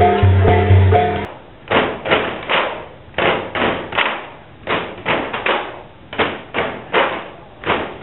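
Traditional music with a steady beat for about the first second, then bamboo dance poles knocked together and against the boards beneath them in a repeating rhythm, a few sharp wooden knocks a second.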